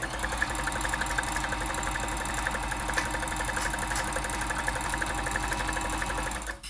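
Janome Combi DX 502 sewing machine running steadily at speed, stitching a large stretch decorative stitch, and stopping near the end.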